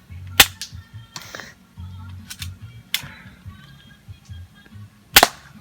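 Airsoft pistol firing three sharp shots about two and a half seconds apart, the first and last loudest, over background music.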